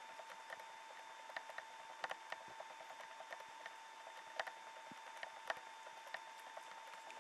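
Faint scattered clicks and light taps, a few of them louder, from cats shifting and walking on wooden floorboards, over a steady faint whine.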